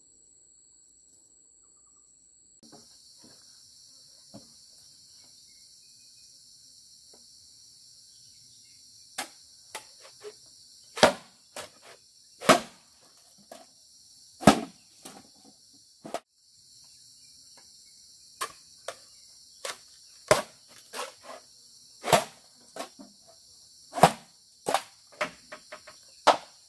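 Irregular sharp knocks of a hand tool striking wood or bamboo, starting about nine seconds in and coming every second or two, some much louder than others. Under them runs a steady high chorus of crickets.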